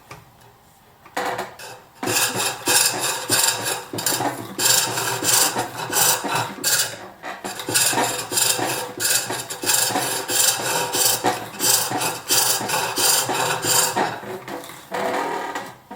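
Turning tool cutting green wood on a bowl blank spinning on a pole lathe, hollowing the bowl. Starts about two seconds in as a fast run of rasping, scraping cuts at about two a second, one with each treadle stroke, and stops shortly before the end.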